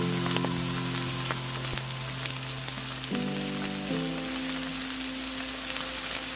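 Steak sizzling on a charcoal grill, a steady crackling hiss of fat spitting, over background music of held chords that change about three seconds in.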